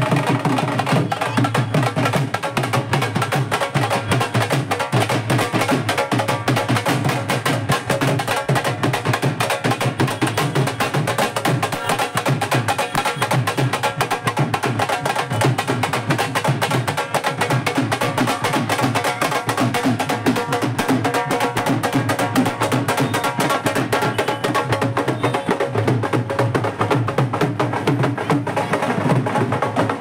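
A dhol and a stick-beaten side drum played together in a fast, steady rhythm of rapid strokes.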